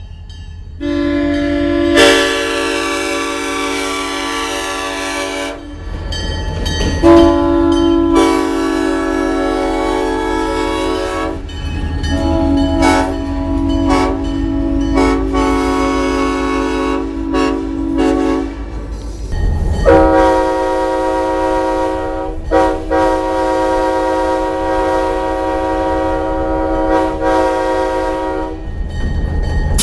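A Nathan M5 five-chime railroad air horn sounding in several long blasts with short breaks. About two-thirds of the way in, an ex-CNW Leslie K5L five-chime air horn takes over with a chord of its own, in two long blasts, the second about six seconds. A low rumble runs underneath.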